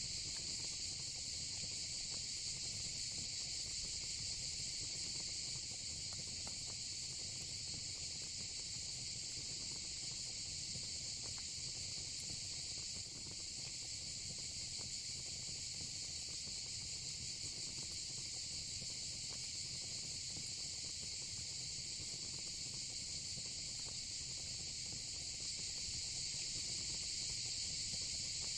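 Steady high-pitched insect chorus of crickets and cicadas, unbroken throughout, over a faint low crackle and rumble from a burning fire pit.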